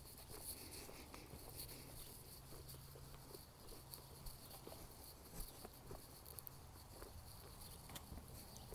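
Near silence: faint outdoor ambience with a faint, steady high chirring of insects and a few soft footsteps on dry dirt.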